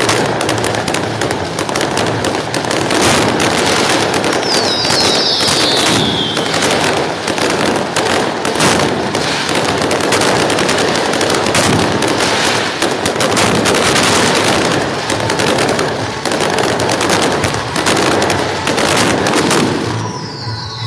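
Fireworks going off in a dense, continuous barrage of cracks and bangs. A falling whistle sounds about five seconds in, and the barrage thins out near the end.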